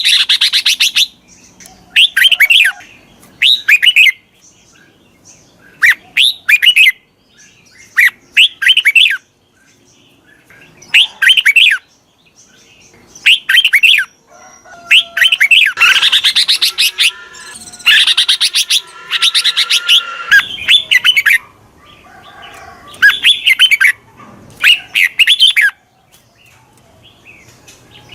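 Red-whiskered bulbul singing: short, loud whistled phrases repeated every second or two, with a longer, denser run of song in the middle.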